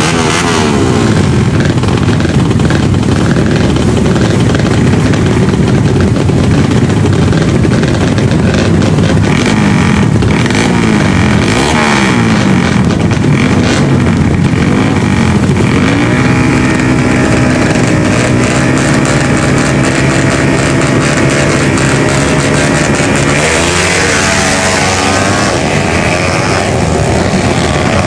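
Drag motorcycle engine revving hard and repeatedly at the start line, the revs rising and falling over and over, then held. About three quarters of the way through it launches, with a sharp rise in pitch as it pulls away.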